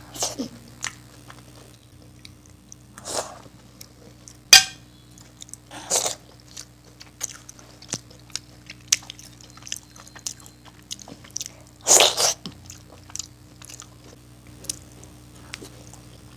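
Close-up eating sounds of dahi vada eaten by hand: wet chewing and lip smacking with scattered sharp clicks and a few louder wet bursts, the sharpest click about four and a half seconds in.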